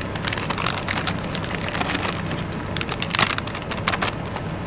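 Crackling and clicking as the rest of the shredded cheese goes into the pot of queso-style cheese sauce: a run of quick crackles with a louder cluster about three seconds in, over a steady low hum.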